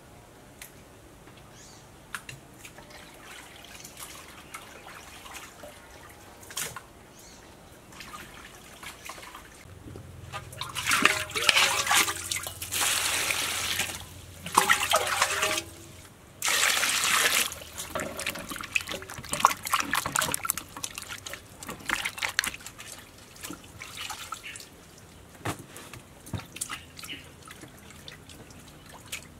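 Water being handled and washed with: scattered drips and small splashes, then loud bursts of pouring, splashing water about ten to eighteen seconds in, near a large glazed clay water jar. After that, hands swish ingredients in a metal basin of water with intermittent splashes.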